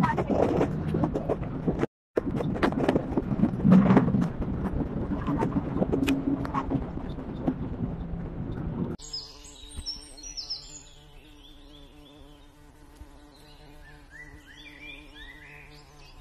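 Loud rushing noise with many knocks and clicks, typical of wind and handling on a moving phone's microphone, drops away about nine seconds in. What follows is quieter: a steady low hum with repeated short chirps of birds high above it.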